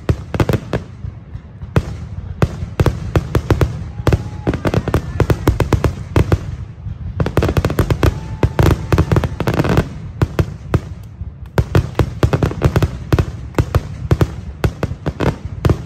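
Fireworks display: aerial shells bursting in rapid, overlapping volleys of bangs and crackle, with brief lulls of about a second between volleys.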